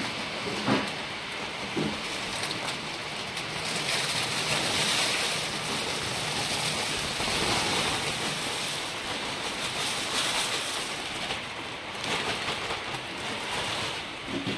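Water splashing and running in a stainless-steel vegetable washer while dried red chillies are tipped in from a plastic bag, a steady rushing hiss that swells in the middle.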